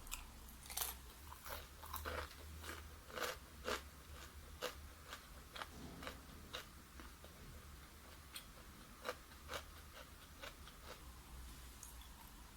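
Close-up chewing of crunchy fried chicken: irregular crunches, thick in the first half and thinning out toward the end, over a low steady hum.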